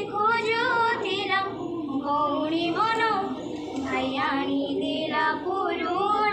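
A high female voice singing a song in long, wavering held notes, with short breaks between phrases.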